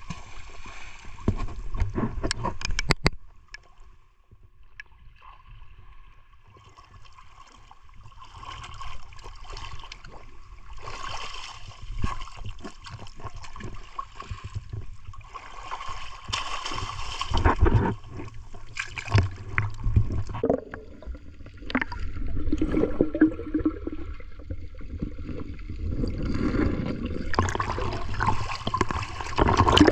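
Shallow seawater sloshing and gurgling around a camera held at the surface, with scattered small splashes and a low rumble of water against the microphone. It grows louder near the end as the camera dips to the water line.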